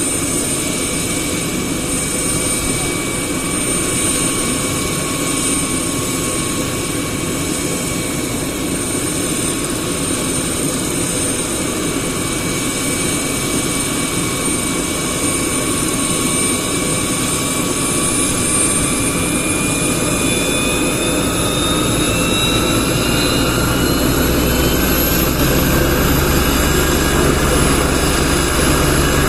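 Helicopter's engine and rotor running with a steady whine. In the last ten seconds the whine rises in pitch and a low rotor beat comes in as power is brought up for takeoff.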